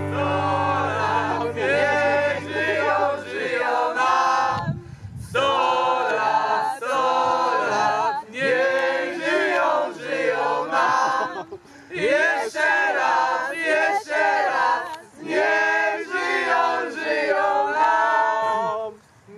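A group of men and women singing together unaccompanied, in phrases broken by short pauses.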